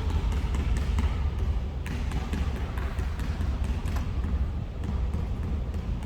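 Basketballs bouncing on a gym floor, a run of irregular thuds over a steady low rumble.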